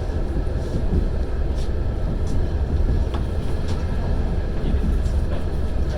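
A passenger train running along the track, heard from inside the carriage: a steady low rumble with a few faint, irregular clicks of the wheels on the rails.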